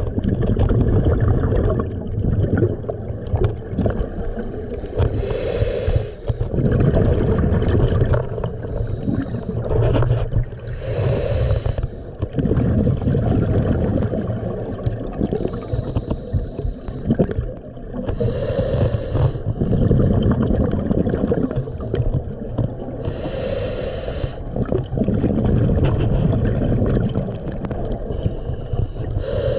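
Scuba diver breathing through a regulator underwater: a breath cycle about every five to six seconds, with bubbling exhalations over a steady low rumble.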